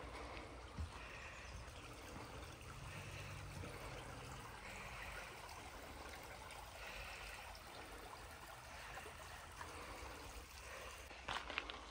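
Steady running water, a small stream trickling, with a few footsteps near the end.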